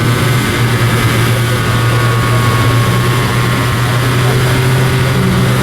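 An engine running at a steady speed: a constant low drone with no revving.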